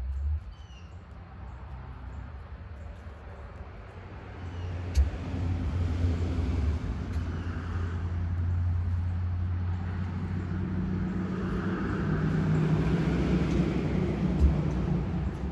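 A motor vehicle passing on a road, its low rumble building from about four seconds in and swelling to its loudest near the end, with a couple of brief knocks.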